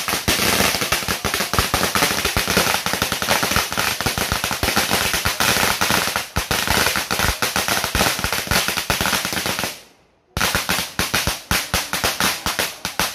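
A long string of small firecrackers going off in a rapid, unbroken run of cracks. The cracks fade and stop for about half a second roughly ten seconds in, then start again.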